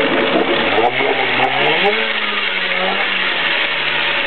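Montgomery Ward Sea King 15 HP two-stroke outboard motor running in a test barrel of water. About half a second in it revs up from a low idle to a steady higher speed, then eases back slightly near the end.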